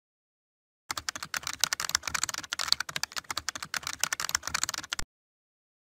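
Fast computer-keyboard typing: a dense, irregular run of key clicks that starts about a second in and stops abruptly about five seconds in.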